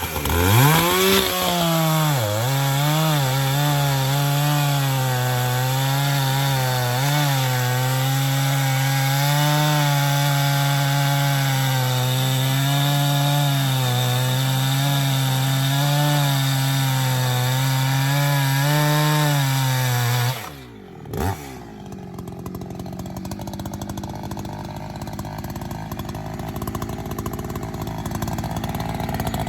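Two-stroke chainsaw with a full-chisel, low-kickback chain at full throttle, cutting a log. The engine pitch dips as the chain bites, then holds steady under load for about twenty seconds. It then drops off suddenly, blips once about a second later, and leaves a quieter steady rumble.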